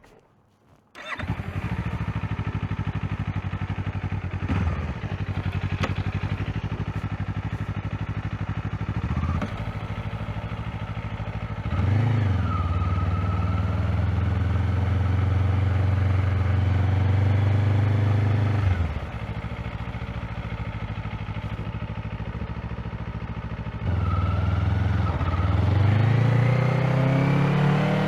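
Kawasaki Z500 motorcycle's parallel-twin engine on its stock exhaust, running during break-in; it comes in about a second in and holds steady, with brief dips and shifts in engine speed every few seconds and a rise in revs near the end.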